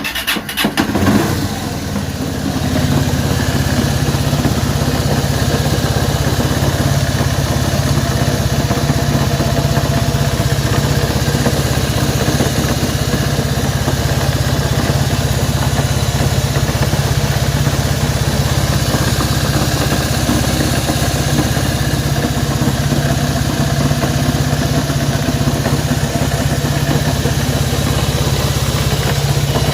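Honda CB190R's single-cylinder engine starting and then idling steadily; the owner says it makes a strange noise, whose cause is being sought.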